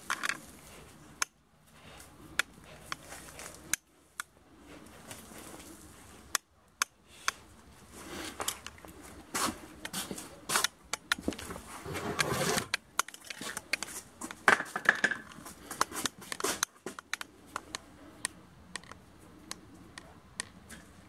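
German wirehaired pointer puppies scrambling on concrete after a rabbit-fur lure on a line: scattered sharp clicks and scrapes of claws and the dragged lure, busiest in the middle.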